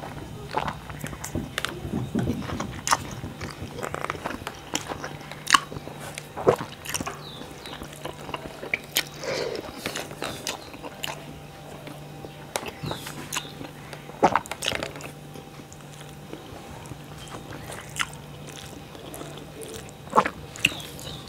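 A man eating rice and curry with his fingers, picked up close by a clip-on microphone: chewing and wet mouth clicks come irregularly, a few at a time, with the odd louder smack.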